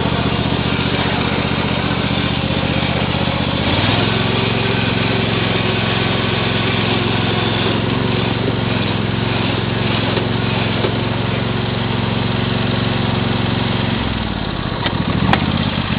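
MTD lawn mower's small engine running steadily under way; its note changes about four seconds in and drops near the end as it slows, followed by a single sharp click.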